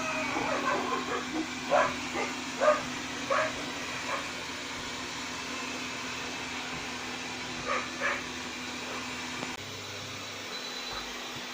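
Robot vacuum-mop running with a steady hum that cuts out about three-quarters of the way through. Over it come short, high, pitched calls, about six in the first four seconds and two more later.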